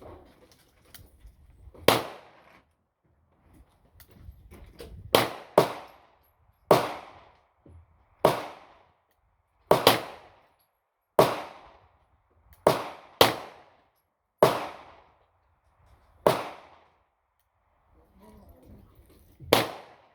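Gunshots: about a dozen single shots at irregular intervals, some in quick pairs under half a second apart, each followed by a short echoing tail.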